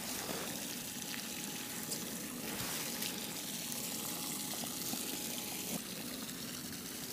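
Steady, even hiss of water noise with a few faint ticks.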